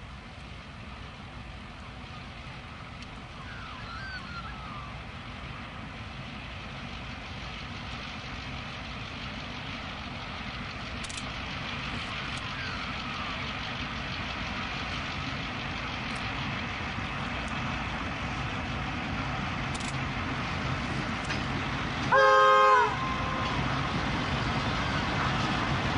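Four V/Line T-class diesel-electric locomotives hauling a train of oil tank wagons, their engine drone and the wheel rumble growing steadily louder. Near the end a single loud locomotive horn blast sounds for under a second.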